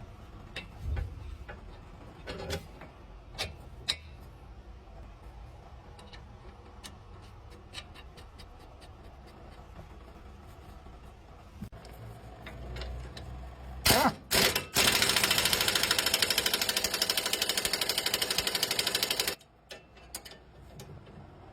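Tool clicks and knocks, then two sharp knocks and a pneumatic impact wrench hammering rapidly for about four and a half seconds before cutting off, working a fastener during a stabilizer (Z) link replacement.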